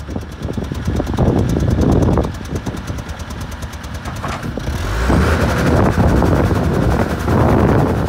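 John Deere 310 backhoe's diesel engine running while the backhoe arm is worked, its note easing off about two seconds in and picking up again about five seconds in.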